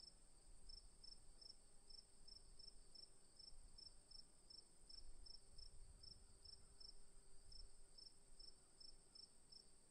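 Crickets at night, faint: one continuous high trill and, beneath it, evenly spaced chirps at about three a second.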